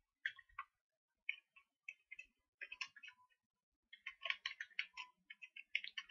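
Faint computer keyboard keys clicking as someone types, in short irregular flurries that are busiest about four to five seconds in.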